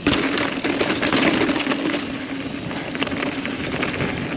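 Mountain bike clattering over rough rock: a sudden burst of knocks and rattles right at the start, then continued rattling over a steady rolling rush.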